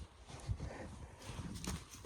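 Irregular knocks and thumps, a handful in two seconds, the sharpest about half a second in and a cluster near the end.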